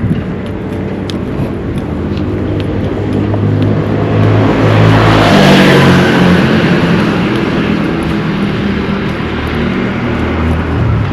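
A motor vehicle's engine hums steadily while a car passes close by, its noise swelling to a peak around the middle and then fading.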